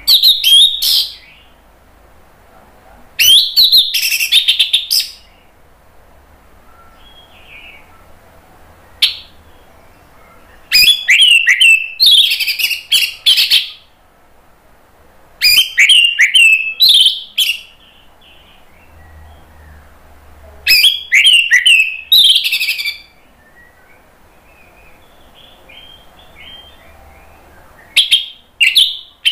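Orange-headed thrush singing loud, rapid, varied phrases of whistles and trills, each lasting a second or three with pauses of a few seconds between them, six phrases in all.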